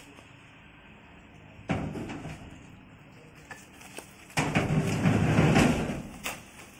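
A steel-framed machine shrink-wrapped in plastic being shoved onto a truck's cargo bed: a sudden knock with a short scrape about two seconds in, then a louder scrape for about two seconds as it is slid along the floor.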